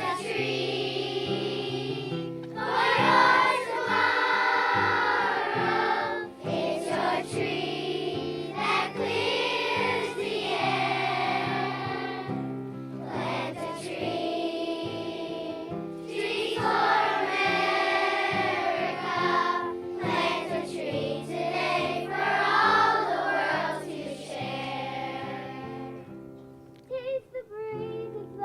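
A group of children singing a tree-planting song in chorus over instrumental accompaniment.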